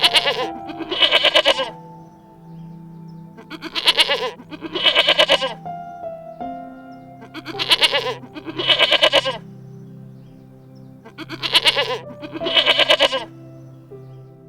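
A goat bleating in pairs of quavering calls, four pairs evenly spaced about four seconds apart, over background music.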